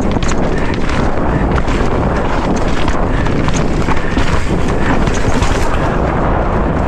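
Mountain bike descending a rocky dirt trail, with the tyres rolling over stones and the bike clattering in many quick clicks, under heavy wind rush on the microphone.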